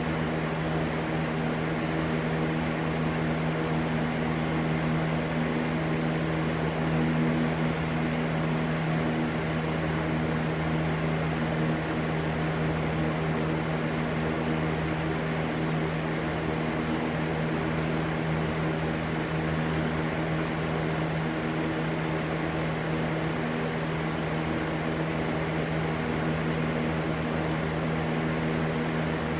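Electric fan running steadily: an even rushing noise over a constant low hum with its overtones.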